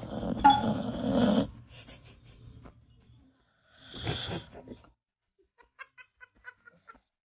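Sleeping mixed-breed dog snoring: a long snore at the start and a shorter one about four seconds in, followed by a few faint ticks near the end.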